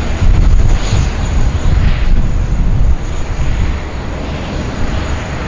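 Airbus A380 jet engines, a loud, even rumble as the airliner arrives, easing off about two-thirds of the way through.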